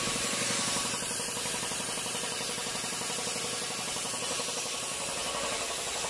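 Piston air compressor running steadily, with a fast, even pulsing chug.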